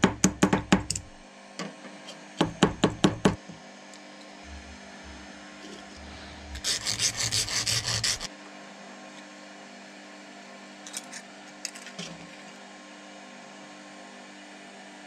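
Small hammer tapping rapidly on a piece of aluminium drink-can metal laid over a steel cylinder, in two quick runs of taps in the first few seconds. About halfway through, a flat metal file rasps back and forth over the aluminium for about a second and a half, followed by a few faint clicks of the piece being handled.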